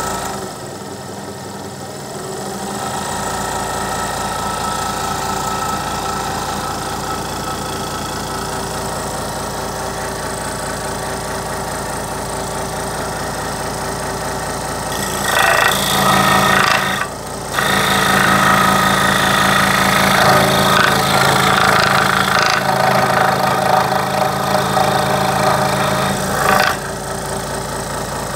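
Ridgid scroll saw running, its motor and reciprocating blade giving a steady hum. About halfway through, the blade starts cutting a hardwood block and the sound turns louder and rougher, with a short break a couple of seconds into the cut.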